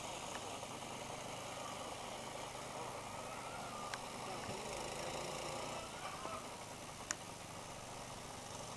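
A motor, most likely the lure-coursing machine's engine, running steadily. Its whine rises and falls in pitch a few times as it speeds up and slows down. Two sharp clicks sound about four and seven seconds in.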